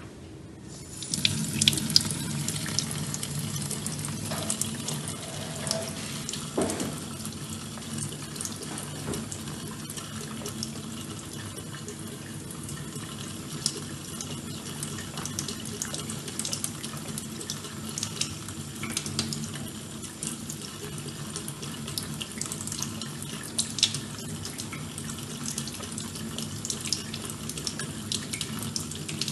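Kitchen tap turned on about a second in, water running steadily into a stainless steel sink, with scattered faint ticks over the stream.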